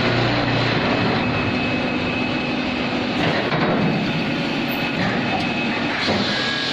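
Powered brick-making machine running, a loud steady mechanical noise with a faint high whine, its texture shifting a few times as it works through its cycle.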